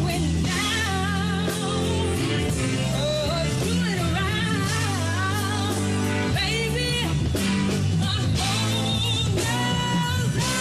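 A woman singing live into a microphone over a backing band, her held notes wavering with vibrato above a steady bass line and drums.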